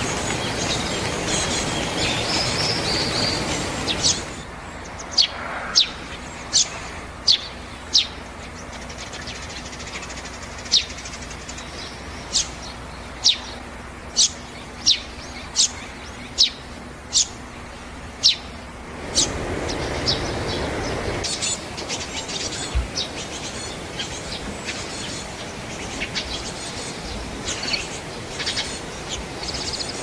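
A small wild bird giving single sharp, high chirps, roughly one a second for about fifteen seconds, over a background hiss; fainter chirps follow.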